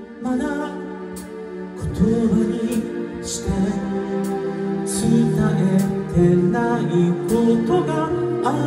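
Male vocalist singing live into a microphone, backed by a band, heard from among the audience.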